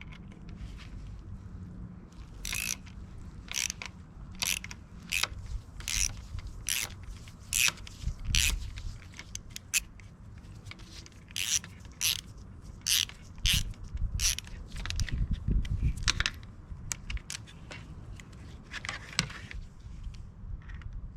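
Repeated sharp metallic clicks and scrapes of hand tools working on a mountain bike being stripped down, roughly one click every two-thirds of a second in two runs, with a pause between them.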